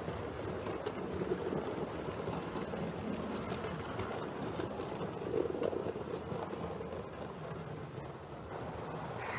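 7mm-scale model train's coaches rolling along the track: a steady rumble of wheels on rails with light clicking, easing off near the end as the train moves away.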